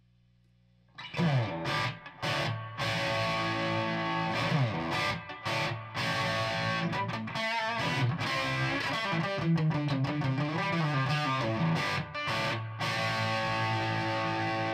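Electric guitar played through an amplifier and speaker, starting about a second in, with the attenuator set to zero attenuation: chords and single-note lines with a few short breaks.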